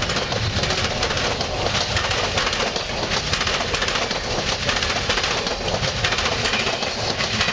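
Amtrak passenger train passing close at speed. The trailing GE Genesis diesel locomotive goes by first, then a steady rush of stainless-steel passenger cars, with the wheels clicking and clattering on the rails.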